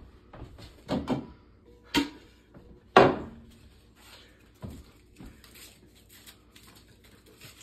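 Knocks and clatters of a stainless steel cooking pot being lifted off a mug on a wooden table. The loudest knock, about three seconds in, has a short ringing tail, followed by a few faint clicks.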